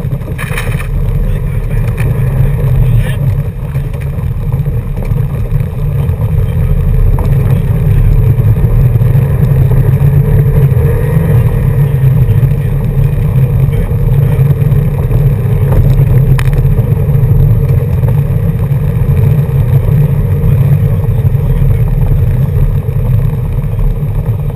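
Car driving on a gravel road, heard from inside the cabin: a steady low rumble of engine and tyres that grows louder over the first several seconds, with a few brief knocks from the road surface.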